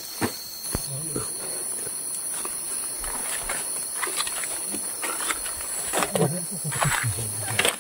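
Footsteps on a forest trail, irregular crackles and knocks from each step, over a steady high-pitched drone of insects.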